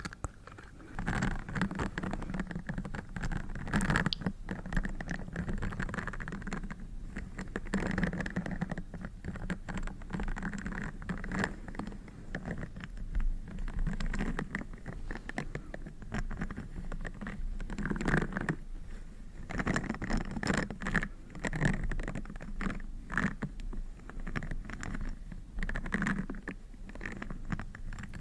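Close-miked ASMR triggers: dense, rapid small taps and scratches that swell and fade in clusters.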